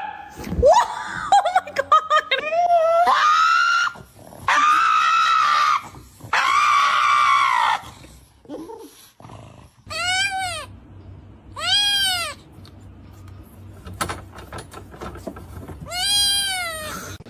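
An animal crying out: a run of loud, drawn-out cries that rise and fall in pitch, then, after a pause, three shorter arched cries a couple of seconds apart over a faint low hum.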